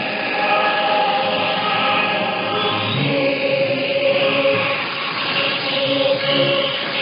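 A choir singing long held notes that change every second or two, received over shortwave radio with the sound cut off above about 5 kHz.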